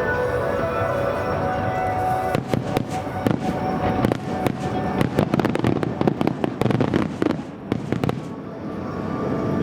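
Music at first. From about two seconds in, a dense run of firework crackles and sharp pops, many bursts close together, lasts about six seconds. The crackling then fades and the music comes through again near the end.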